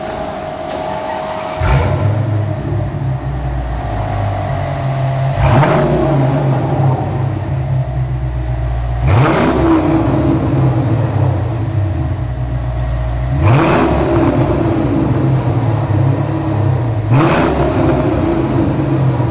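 Mercedes-Benz E55 AMG's supercharged 5.4-litre V8, running through a muffler-delete, catless exhaust, idling and blipped five times, about every four seconds. Each rev rises quickly and drops back to idle, in an underground car park.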